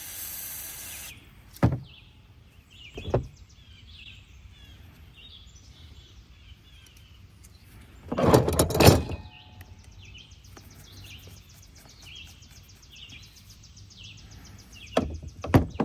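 Bench work on a small ATV carburetor: a brief hiss at the start, a few light clicks and knocks of small metal parts, and one loud rushing burst about eight seconds in. Birds chirp faintly in the background.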